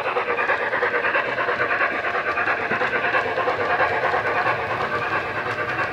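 DCC sound decoder in a model Flying Scotsman steam locomotive playing fast, even exhaust chuffs of a steam engine working at speed, through small speakers fitted in the boiler and tender.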